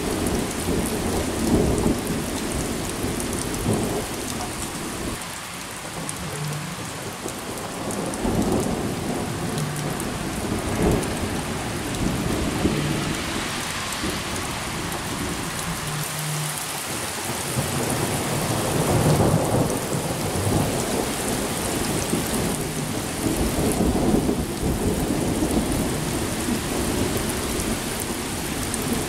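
Thunderstorm: steady rain with thunder rumbling several times in low swells, the strongest about two-thirds of the way through.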